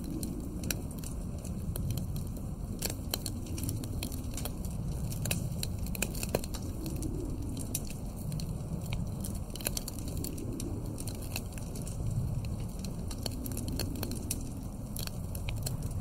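Wood fire crackling, with frequent sharp pops and snaps, over a low steady rumble of wind that slowly swells and fades.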